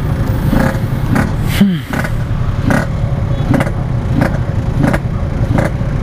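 Yamaha RX-King's 135 cc two-stroke single-cylinder engine held at low speed in traffic, its throttle blipped in short revs roughly every two-thirds of a second, with one rev dropping away about one and a half seconds in. The engine has no idle, so it has to be revved a little to keep it running.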